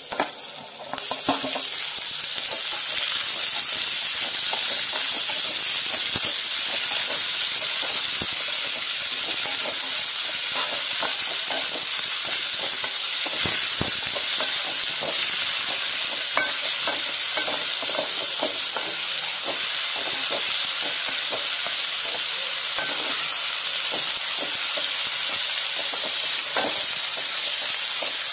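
Onions, green chillies and tomatoes sizzling in hot oil in a steel kadai, stirred with a wooden spatula that scrapes and taps the pan again and again. The sizzle grows louder about two seconds in.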